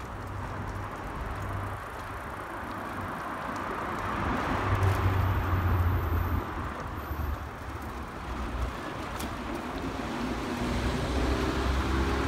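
Road traffic: cars passing on the road alongside, a low rumble with tyre noise that swells to a peak about five seconds in and again near the end.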